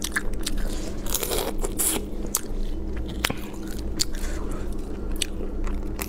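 Close-up crackling of cooked crayfish shells being cracked and peeled by hand and bitten: a series of irregular sharp cracks and clicks.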